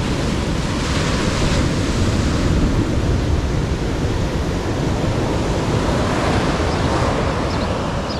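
Surf breaking and washing up a sand beach, a steady wash of noise, with wind rumbling on the microphone.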